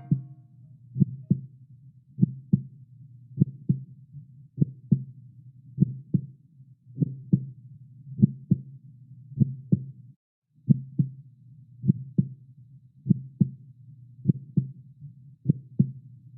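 Slow heartbeat sound effect: paired lub-dub beats a little over a second apart over a low steady hum. The hum cuts out for a moment about ten seconds in.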